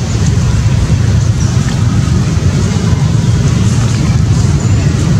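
Steady loud low rumble with a faint hiss above it, with no pitched engine note and no change in level.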